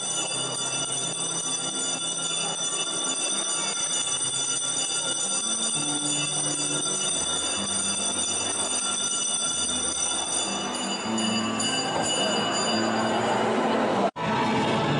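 Church bells ringing on and on, with many high tones held together, over lower held notes that shift every second or two. The ringing fades away about eleven seconds in, and the sound drops out for a moment near the end.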